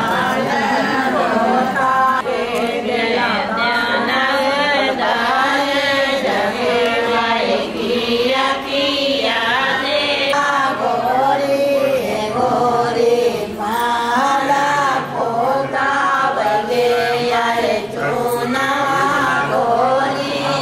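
Singing with music: a melodic vocal line with wavering pitch that carries on throughout.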